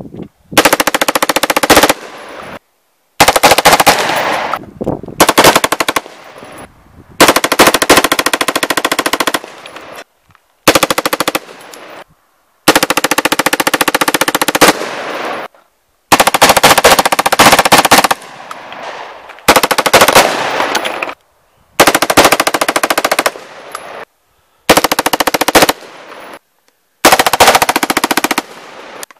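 M-16 with a 4.5-inch barrel chambered in .223 Wylde firing on full automatic: about a dozen loud bursts of rapid shots, each one to three seconds long, with short pauses between and an echo trailing after the bursts.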